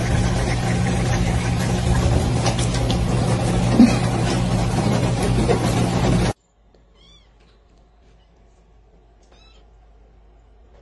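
Countertop water dispenser running a steady stream into a glass, with a constant low hum, cutting off suddenly about six seconds in. After that, a couple of faint, short, high squeaks.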